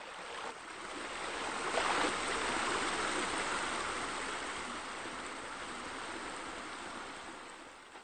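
Water sound effect of a small rock waterfall, a steady splashing rush that swells to its loudest about two seconds in and fades away near the end.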